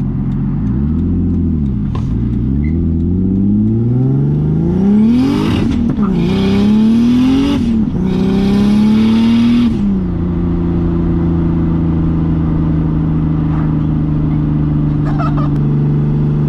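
BMW E30's turbocharged M50 inline-six accelerating hard, heard from inside the cabin. The engine climbs in pitch and drops back at shifts about 6 and 8 seconds in, with a loud rushing hiss over the hardest pulls. About ten seconds in it settles to a steady cruise.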